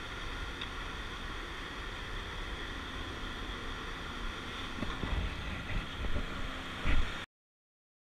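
Wind buffeting the microphone over a steady rushing noise, with a few heavier thumps near the end. The sound cuts off abruptly about seven seconds in.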